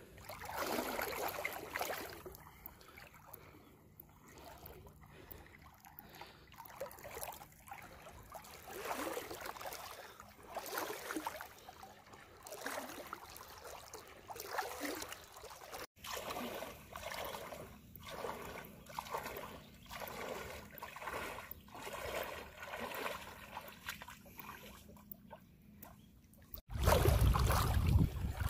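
Legs wading through shallow lake water, a swishing slosh with each stride, repeating about every second. A louder low rumble takes over near the end.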